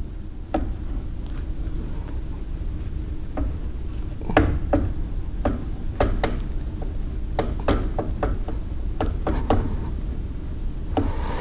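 Irregular metal clicks and knocks as the magnetic chuck of an SG1200 surface grinder attachment is slid forward and seated in its clamp on a belt grinder, over a steady low hum.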